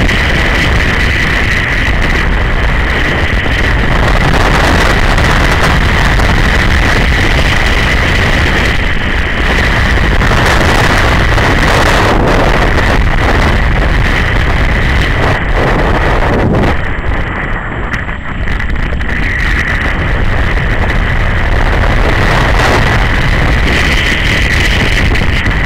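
Wind rushing over a motorcycle-mounted camera's microphone, mixed with the steady running of a BMW G 650 GS Sertao's single-cylinder engine at road speed; the high part of the rush drops away briefly about two-thirds of the way through.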